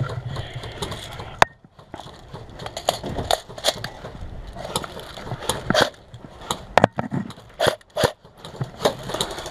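A player moving on foot with gear: irregular crunching footsteps and knocks, with one sharp click about a second and a half in.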